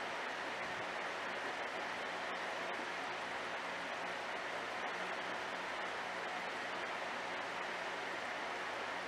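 Aquarium filter running: a steady rush of water with a faint low hum underneath.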